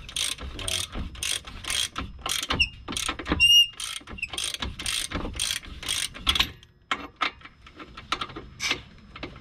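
Hand ratchet wrench clicking in quick runs as it is swung back and forth, turning a bolt on a car's front strut, with a couple of short high squeaks in the middle. The clicking thins out and gets quieter after about seven seconds.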